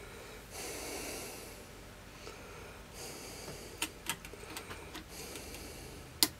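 Quiet breathing close to the microphone, a few slow breaths, with small clicks around the middle and one sharper click near the end as the plastic tuning capacitor is handled and fitted onto the printed circuit board.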